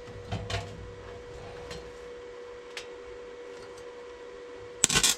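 A steady hum with a few faint ticks, then near the end a short, loud crackling burst from a MIG welding arc: a brief, faltering weld attempt.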